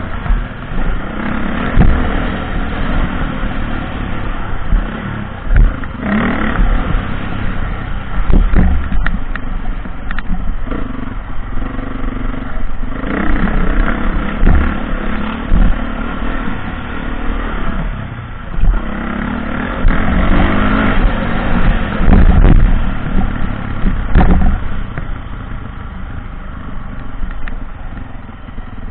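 Dirt bike engine heard up close from the rider's own bike, revving up and down with the throttle while riding a rough dirt track, with several short low thumps along the way.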